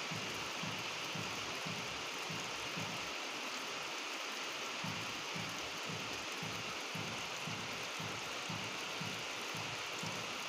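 Steady rain falling, an even hiss, with a low fluttering pulse underneath about three times a second.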